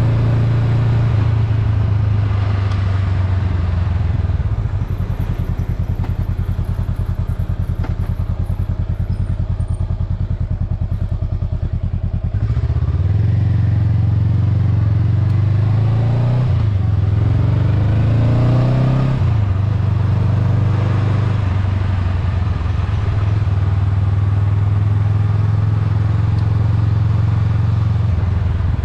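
Honda Rebel 500's parallel-twin engine, heard from the rider's seat while under way. It runs steadily at first. About halfway through it pulls harder and the revs climb and drop twice as it shifts up, then it settles into a steady cruise.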